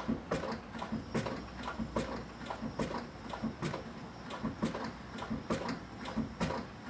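Clutch pedal of an Infiniti G35 being pumped, knocking about twice a second as it snaps back up. It is the sign of firm hydraulic pressure built up in the freshly bled clutch system.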